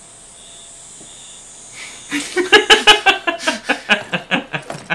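Two people laughing hard in quick, rhythmic bursts of about five a second, breaking out about two seconds in. Before that there is only a faint high chirp repeating about twice a second.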